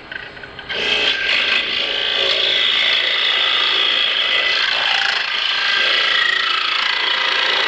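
Carbide-tipped parting tool cutting into spinning black walnut on a wood lathe, starting under a second in: a steady, high-pitched scraping hiss as the cut deepens to part off the piece.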